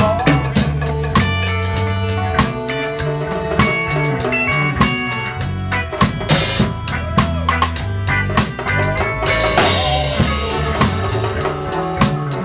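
Live reggae band playing, with the drum kit prominent over keyboard and guitar. A cymbal crash washes over the beat about nine seconds in.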